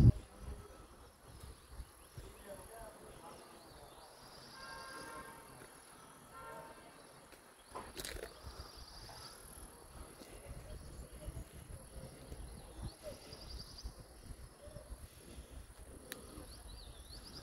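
Insects calling: a steady high hiss, with a high pulsed trill about every four seconds, each lasting about a second. A single sharp click comes about eight seconds in.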